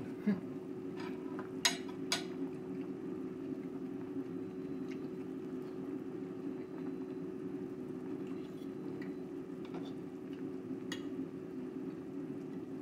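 Chicken tinola soup boiling in a large stainless stockpot on a gas stove: a steady bubbling with a low hum underneath. Two sharp clinks of a fork on a plate come about two seconds in.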